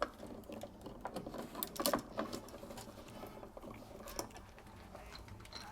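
Small scattered clicks and scrapes of a copper ground wire and screw being worked onto the terminal of a smart dimmer switch, with a cluster of clicks about two seconds in and another about four seconds in.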